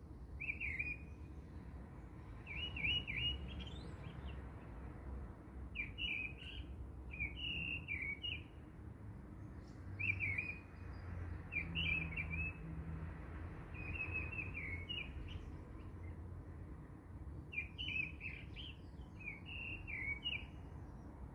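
Small birds chirping in short repeated phrases every second or two, over a steady low rumble.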